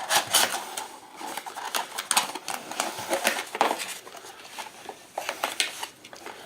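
Hands taking a headset out of its cardboard and plastic packaging: irregular clicks, taps and rustles of plastic and cardboard.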